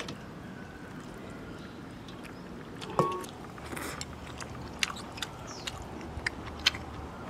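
A man eating instant noodles: after a short knock about three seconds in, a string of short wet smacks and clicks of slurping and chewing.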